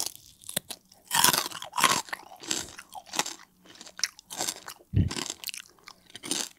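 Crispy air-fried pork belly crackling being bitten and chewed: a run of sharp, irregular crunches, about two a second, as the crisp skin breaks between the teeth.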